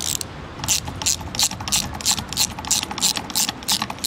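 Ratchet wrench clicking in quick, even clicks, about four a second, as it tightens the nuts of a handlebar U-bolt mount.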